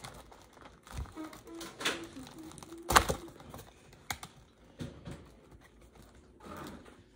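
Hands working at a shrink-wrapped cardboard booster box, trying to open it: scattered taps, clicks and plastic crinkles, with one sharper knock about three seconds in.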